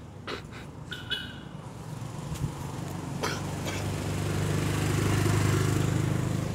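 A motor vehicle's engine passing by, its hum growing louder to a peak about five seconds in, then starting to fade.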